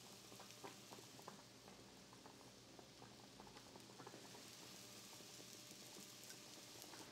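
Mushrooms sautéing in butter and oil in a stainless steel skillet: a faint steady sizzle with many small crackles. The mushrooms are starting to release their water.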